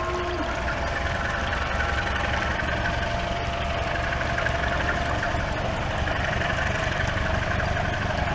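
Diesel locomotive engine running steadily as the train pulls out, a low rumble with a steady whine over it.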